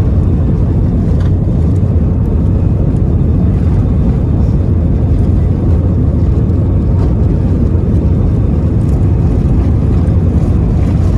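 Steady low rumble of an Airbus A320 heard from inside the cabin: engine and airflow noise, even in level with no change.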